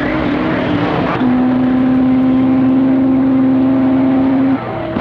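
CB radio receiver between transmissions: band noise and hiss with faint wavering tones. About a second in, a strong steady low tone comes in over the channel, holds for over three seconds, and cuts off suddenly near the end.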